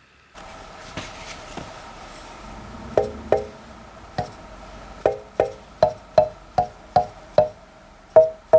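Small wooden tongue drum struck tongue by tongue with a ball-headed mallet: about a dozen short ringing notes, a few spaced out at first, then an even run of about three a second from about five seconds in. The tongues are not yet fine-tuned and sound a little higher than the planned G major scale.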